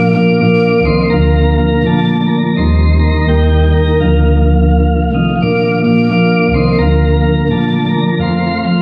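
Harmonia HS 200 Super electronic organ playing a hymn in four-part harmony. Sustained chords change about once a second over deep pedal bass notes that come and go.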